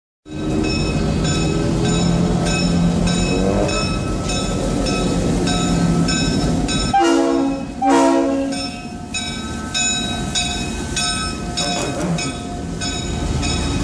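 Diesel locomotive of the Santa Cruz Big Trees & Pacific Railway running slowly past a street crossing, with a bell ringing about twice a second and two short horn blasts about halfway through.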